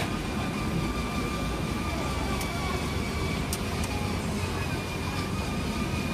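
Steady rumble and hiss of a busy sausage grill stall, with faint background voices and a few light clicks partway through.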